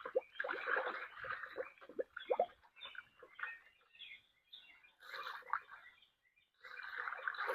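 Drained radiator coolant being poured from a bucket into a one-gallon jug, splashing and gurgling as the jug fills. The pour breaks off briefly about six seconds in, then resumes.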